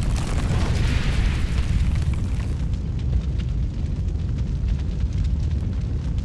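Sound-design effect for an animated logo intro: a deep, constant rumble, with a hissing rush over the first two or three seconds, then scattered crackles.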